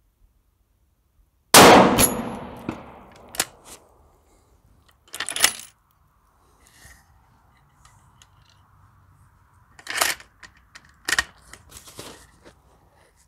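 A single 6.5 Creedmoor rifle shot about a second and a half in, with a long fading echo. About two seconds later comes the ding of the bullet striking a steel paddle target about 300 yards out, knocking it over. Later there are several quieter metallic clicks and clanks.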